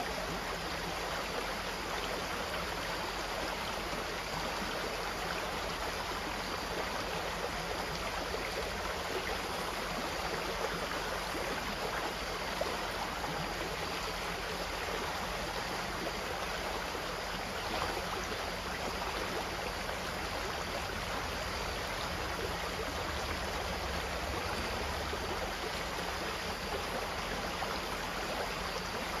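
Steady flowing water of a stream, running and splashing evenly.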